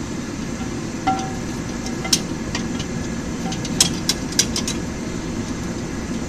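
Blacksmith's forge running with a steady low roar while the steel heats, with a few light metal clinks between about two and four and a half seconds in.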